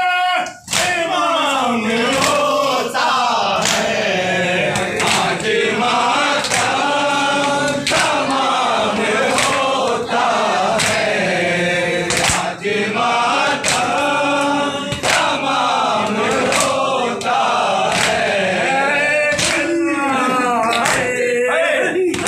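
A group of men chanting a noha, a Shia mourning lament, together, with sharp hand slaps of matam (chest-beating) keeping time about once a second.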